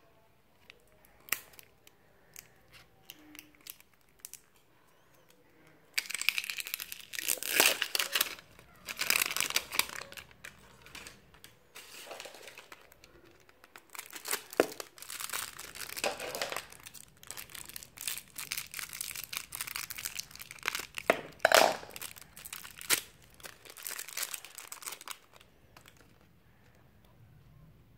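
Wrapper layers and packets of an L.O.L. Surprise toy ball crinkling and tearing as they are peeled off by hand. It comes in bursts from about six seconds in until near the end, with a few light clicks before that.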